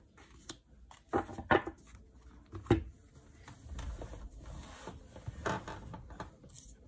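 Tarot cards being handled and laid out on a cloth-covered table: three sharp taps in the first three seconds, then softer rustling and light clicks.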